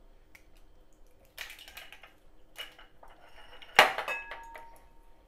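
Kitchen handling sounds: a couple of brief scrapes and rustles, then, about four seconds in, a sharp clink of glassware that rings on for about a second.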